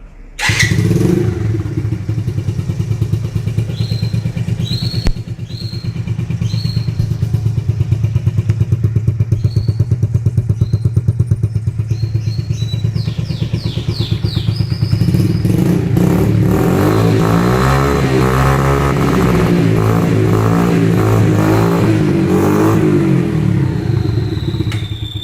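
Traxx Moby scooter engine running through a Roncar aluminium exhaust. It starts up about half a second in and idles steadily, is revved up and down repeatedly in the second half, then cuts off at the end.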